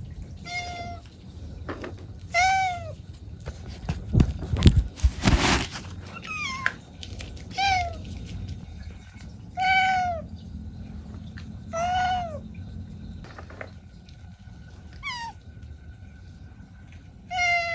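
Domestic cat meowing repeatedly, about eight separate meows that each rise and fall in pitch, a second or two apart. A short run of loud knocks comes about four to five seconds in.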